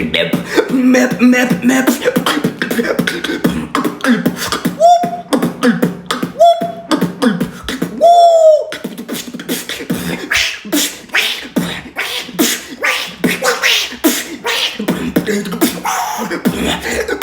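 Human beatboxing: mouth-made drum beats with three held, wavering goat-bleat imitations in the middle, then a faster, denser beat.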